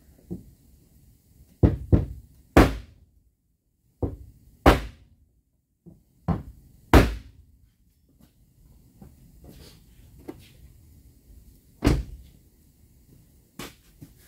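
A light hammer knocking on a thin wooden block wedged against a car body panel to tap a dent out. About nine sharp knocks come at uneven intervals, some in quick pairs, with a pause of a few seconds in the middle.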